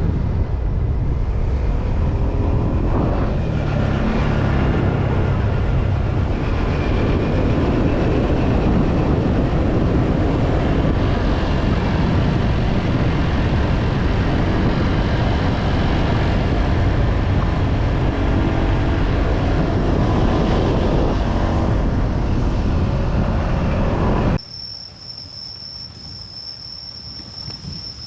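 Riding a Honda PCX125 scooter: steady engine and road noise with wind rushing over the microphone. About 24 seconds in it cuts off abruptly, and crickets chirp steadily in a single high tone.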